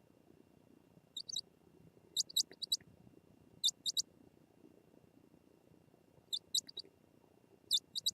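Short, high-pitched bird chirps, about five quick groups of two to four notes each, over a faint low background.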